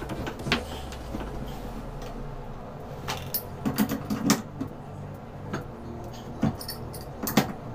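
Metal tool clicks and clanks as a wrench turns a cartridge puller on a Moen shower valve cartridge, drawing the old cartridge out of the valve body. There are several sharp clicks scattered through, with a busier run of knocking and scraping about three to four seconds in.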